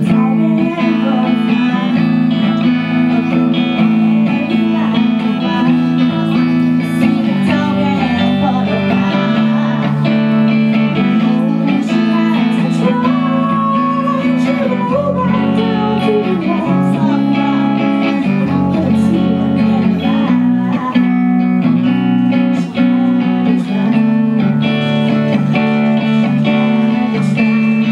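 Live music from two Les Paul-style electric guitars through a Marshall amp: steady chords with a melody line moving above them.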